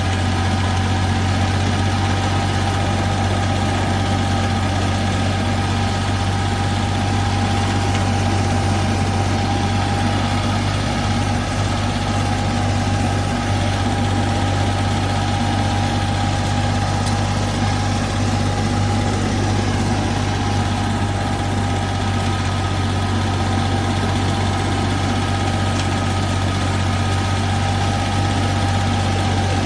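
Flail mower running steadily: an unbroken engine hum with a steady whine above it.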